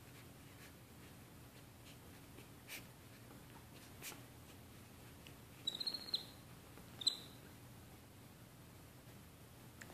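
Faint, short high-pitched animal squeaks: a quick cluster about six seconds in and a single one a second later, with a few soft taps.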